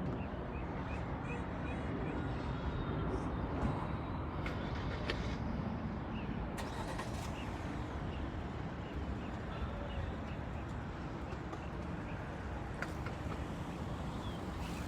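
Steady low rumble of vehicle traffic and engines, with faint, high, short chirps repeating through it.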